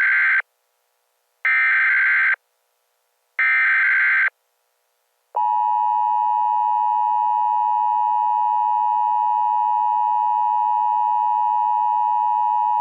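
Emergency Alert System tones: three short bursts of the screeching data header, about a second each and two seconds apart, then the steady two-tone attention signal starting about five seconds in.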